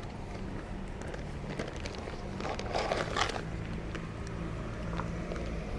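Street background noise: a steady low mechanical hum, with scattered small clicks and a brief noisy burst a little before the middle.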